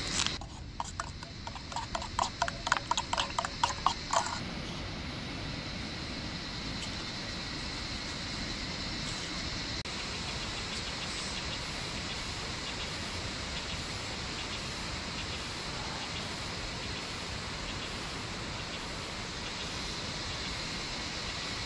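A quick run of hollow knocks, about four a second, growing louder for the first four seconds and then stopping. A steady even hiss follows.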